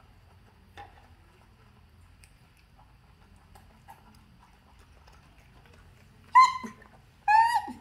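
A pet monkey giving two short, high-pitched calls near the end, after a faint brief call about a second in.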